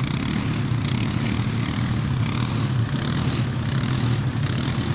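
ATV engine running steadily at a constant speed, a low even drone with no revving.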